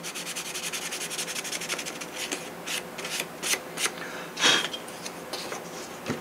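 Hand sanding with loose 220-grit sandpaper on a small wooden fillet piece for an RC model wing. Rapid rubbing strokes for the first couple of seconds give way to slower, separate strokes, one louder than the rest about two-thirds of the way through.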